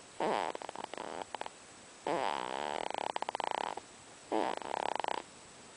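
Newborn baby snoring in her sleep: three rattly snoring breaths, the middle one the longest.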